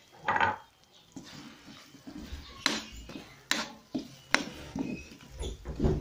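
Spatula scraping and knocking against a wok while sweet potato slices frying in oil are stirred, with a few sharp clacks about a second apart in the second half.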